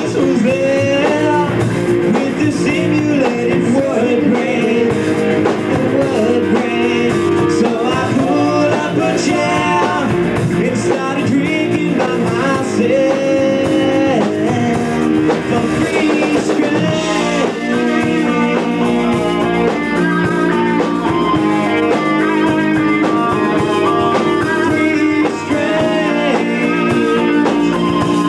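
Live rock band playing: electric guitars over a drum kit, with singing.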